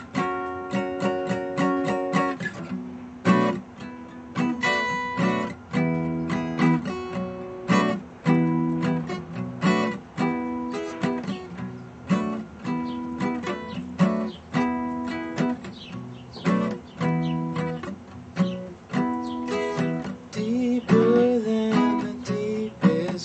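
Acoustic guitar played solo: strummed chords with picked notes ringing between them, in a steady rhythm.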